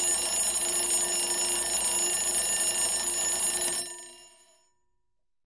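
Loud timer alarm going off at the end of the countdown: a steady ringing that holds for about four seconds, then dies away over the next second.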